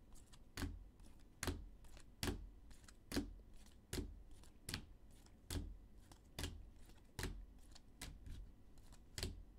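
Rigid plastic toploader card holders clicking as they are taken one at a time off a stack and set down on a pile: a light, sharp click a little under once a second.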